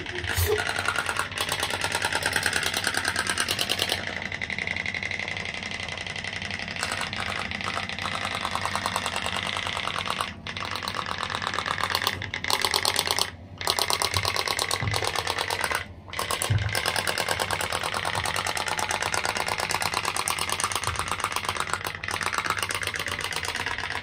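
Homemade pop-pop boat's steam-jet engine running: a rapid, steady putt-putt pulsing many times a second. It cuts out briefly three times.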